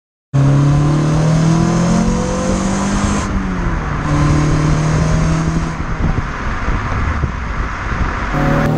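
Renault Clio Sport (2003) 2.0-litre four-cylinder engine revving through its stock exhaust, heard from the rear. The catalytic converter is removed; the original resonator, pre-silencer and muffler remain, so it sounds stock and quiet. The engine note climbs for the first few seconds, drops back, then holds steady.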